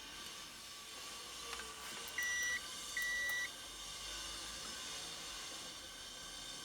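Multimeter continuity buzzer beeping twice, each a steady high tone about half a second long, as the probes touch two points on a circuit-board track: the beep signals an unbroken connection between them.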